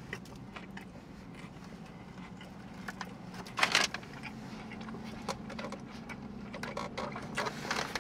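Paper sandwich wrapper crinkling and rustling as a sub is handled, with scattered small crackles and one louder rustle about three and a half seconds in, over a faint steady low hum.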